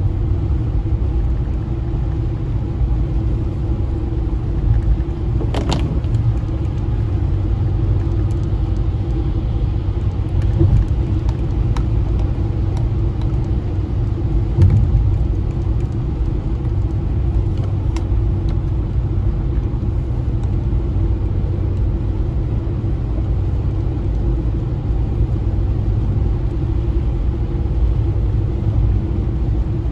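Steady low rumble of a car being driven, engine and road noise together. A few light clicks come through, with one sharper knock about six seconds in.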